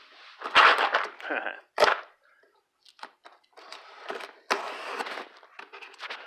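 A cardboard shipping box being opened and its contents handled: a run of sharp knocks and clicks, the loudest about half a second and two seconds in, with scraping and rustling between them.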